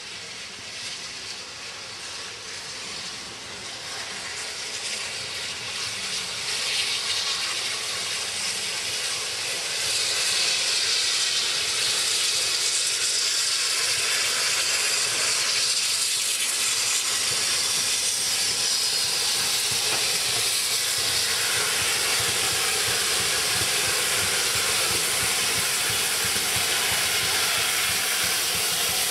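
GWR Castle-class steam locomotive 5029 Nunney Castle approaching and running through the station with its train: a steady hiss of steam and running noise that grows louder over the first ten seconds, then holds.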